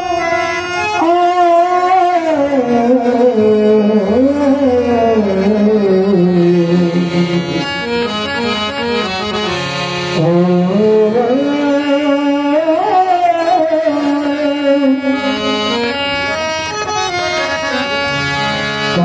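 Indian devotional gavlan music: a harmonium and tabla accompanying a long, gliding sung melody line without clear words.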